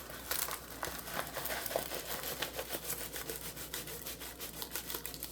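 Rustling and rubbing of a rolled diamond painting canvas, with its plastic cover film, as it is unrolled by hand. A continuous crinkle is scattered with many small clicks and taps.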